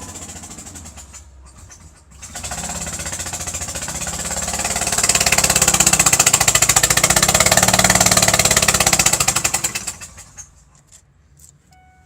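Car engine with a blown-out spark plug hole running with a rapid knocking puff; the owner reads it as compression escaping through the hole rather than a real rod knock. It catches about two seconds in, gets louder, then dies away near the end.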